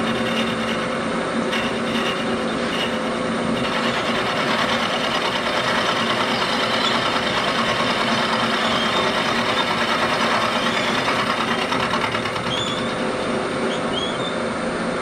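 Bridgeport milling machine running, its carbide end mill cutting the face of a cast-iron cylinder casting: a steady machining noise over the spindle's hum, easing slightly about twelve seconds in, with a few short high chirps near the end.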